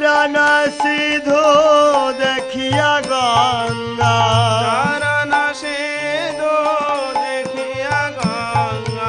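Devotional Vaishnava song music: a wavering, gliding melody over a steady held drone, with low drum strokes underneath.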